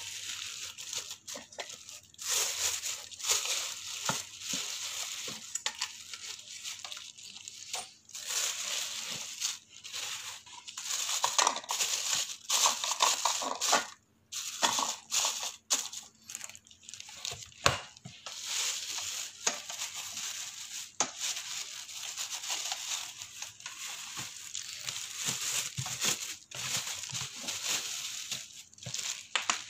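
Clear plastic packaging film crinkling and rustling in irregular bursts as it is handled around a new multi-cooker's stainless-steel pot and lid, with scattered small clicks and knocks.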